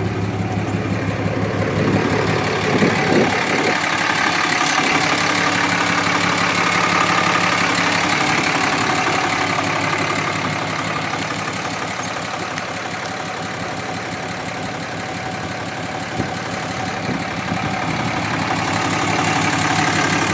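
2007 Dodge Ram 2500HD's Cummins turbo-diesel inline-six idling steadily.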